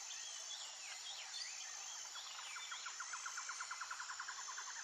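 Nature ambience: birds calling with wavy whistled notes over a steady high insect hiss. About two seconds in, a rapid trill starts, at roughly ten notes a second, and continues to the end.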